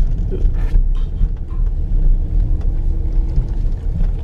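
Steady low rumble inside the cabin of a Dodge Durango R/T driving on a snow-covered road, with its 5.7-litre HEMI V8 and the tyres on snow blending into one drone.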